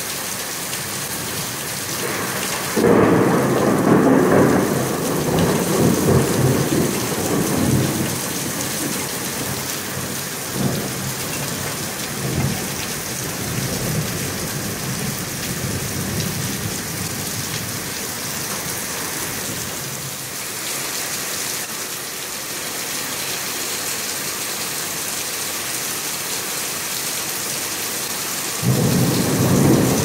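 Rain falling steadily through a thunderstorm. A loud rumbling peal of thunder breaks about three seconds in and rolls on for several seconds, a couple of fainter rumbles follow, and another peal breaks near the end.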